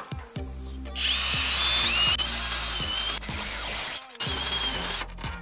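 Cordless drill running for about three seconds, starting about a second in, as it drills into a wooden batten clamped to a curved metal sheet. Its motor whine steps up in pitch, and it ends in a loud harsh burst as the bit cuts. Background music plays underneath.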